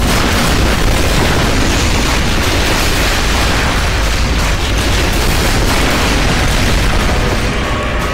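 Film sound effect of Godzilla Earth's atomic breath beam blasting its target: a loud, sustained explosive rush that eases off slightly near the end.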